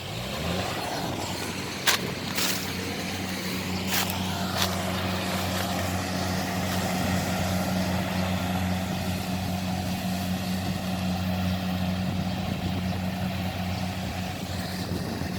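Kubota 70 rice combine harvester's diesel engine running at a steady speed, with a few sharp clicks or knocks in the first few seconds.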